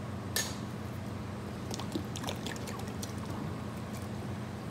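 Pineapple juice pouring from a jug onto rolled oats and fruit puree in a plastic tub, with a few faint clicks and a steady low hum underneath.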